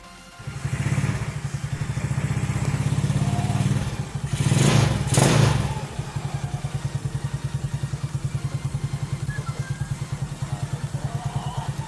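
A small motor scooter's single-cylinder engine starts about half a second in and runs with a rapid, even pulse. It revs briefly around four to five seconds in, then settles back to a steady idle, freshly filled after an oil and gear-oil change.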